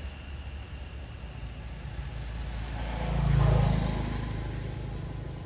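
A motor vehicle passing by: its rumble swells to a peak about three and a half seconds in and then fades, over a steady low traffic rumble.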